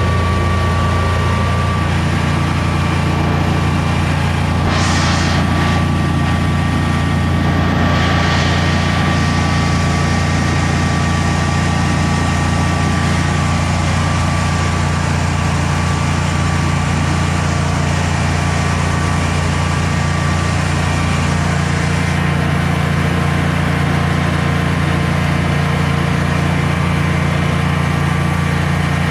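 Generac Guardian 16 kW standby generator's air-cooled V-twin engine running steadily under a load of close to 6,000 watts of heaters, holding an even speed without hesitating. Two brief hisses come about five and eight seconds in.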